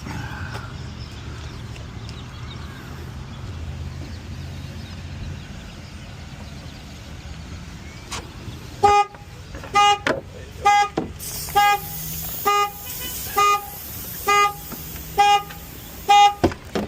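Car anti-theft alarm going off: the horn sounds in a steady pulse, about one honk a second, starting about halfway through. Before it there is only a low steady rumble.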